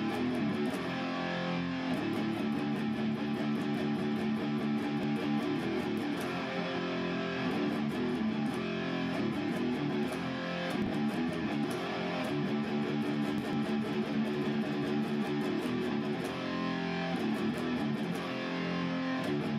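Instrumental music played on electric guitar, going on at a steady level.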